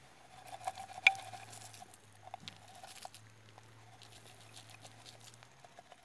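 Light rustling and scattered small clicks of a loose stone being handled over wet leaf litter, with one sharp click about a second in.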